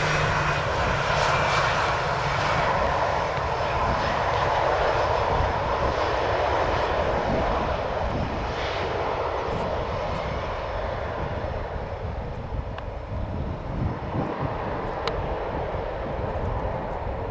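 Jet engine roar of an Airbus A318-111 rolling out on the runway just after touchdown. It is loudest over the first half and slowly fades as the aircraft moves away.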